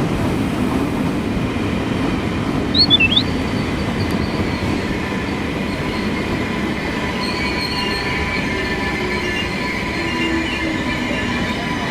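Train running along the track, with a steady rumble and high wheel squeal that grows stronger in the second half; a brief high chirp about three seconds in.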